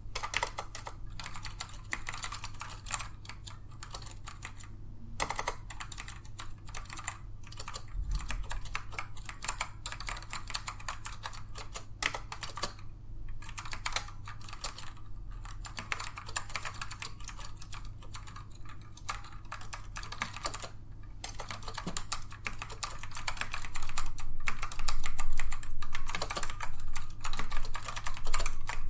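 Continuous typing on a Dell AT102W mechanical keyboard with black Alps switches, which are tactile rather than clicky: a dense patter of keystrokes. The typing gets louder for the last few seconds.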